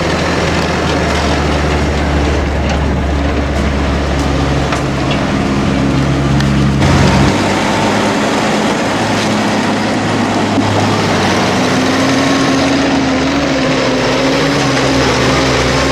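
Heavy diesel farm machinery engines running steadily during forage harvesting of maize. The deep engine drone drops away about seven seconds in, and a different steady engine tone comes in near the end.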